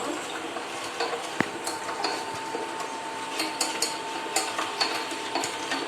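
Ginger, honey and lemon sugar syrup being stirred in a pan on the stove, the utensil scraping and tapping against the pan in short irregular strokes. A thin steady hum joins about a second and a half in.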